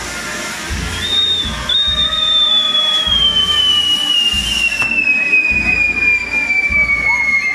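Pyrotechnic whistle on the burning crown of a castillo fireworks tower: one long whistle that starts about a second in and falls slowly and steadily in pitch, over the hiss of burning fireworks.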